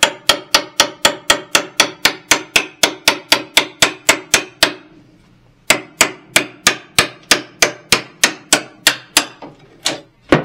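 Hammer rapidly tapping the steel blade of a flat scraper, about five sharp metal-on-metal strikes a second, driving the blade under a molding on a wooden cabinet to pry it off. The tapping breaks off for about a second midway, picks up again, and ends with two separate taps.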